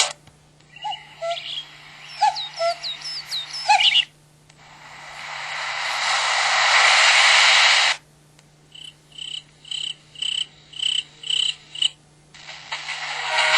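Nature-sound effect tones from the MS400 mobile phone, played through its speaker one after another. First comes a run of bird-like chirps with gliding pitches, then a rush of noise that swells for a few seconds and cuts off suddenly, then about eight short chirps at roughly three a second. Ringtone music starts near the end.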